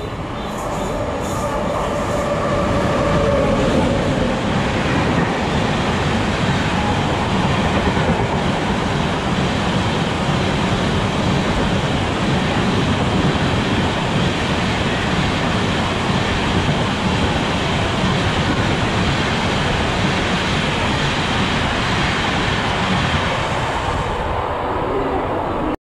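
Tejas Rajdhani Express, hauled by a WAP-7 electric locomotive, running through a station at speed. The sound swells over the first few seconds as the train arrives, then holds as a steady rush of the coaches' wheels on the rails, and cuts off suddenly near the end.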